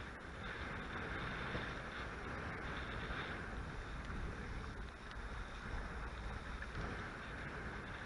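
Steady rush of wind and water around a Hobie Cat 16 catamaran sailing in a strong breeze.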